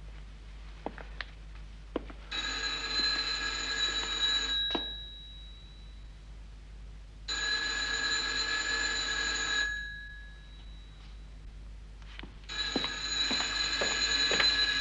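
Telephone bell ringing three times, each ring about two and a half seconds long, with pauses of about the same length between rings.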